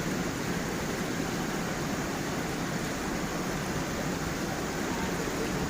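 Small forest waterfall and stream flowing over stones: a steady, even rush of water.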